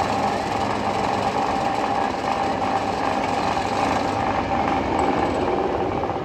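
Interactive shooting dark ride noise: a steady, fast mechanical rattle under a held mid-pitched tone.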